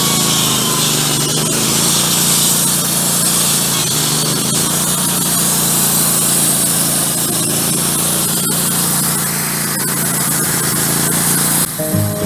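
Wood-Mizer LT15 Go portable band sawmill running steadily, its band blade sawing through a frozen pine log. Acoustic guitar music cuts in near the end.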